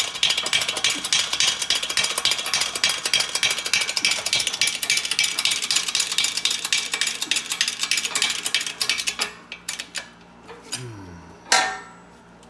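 Rapid, steady mechanical rattling that stops after about nine seconds, followed by a few light clicks and a single sharp metallic clank near the end.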